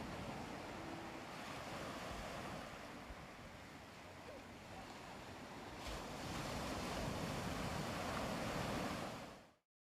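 Ocean waves washing onto a beach: a steady surf hiss that eases off in the middle, swells with an incoming wave about six seconds in, then fades out to silence near the end.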